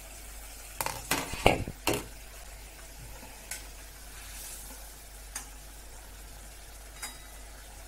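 A few sharp metal clinks and knocks between one and two seconds in, then a metal spatula stirring curry in a stainless-steel kadai with occasional light taps on the pan, over a steady low sizzle of the simmering curry.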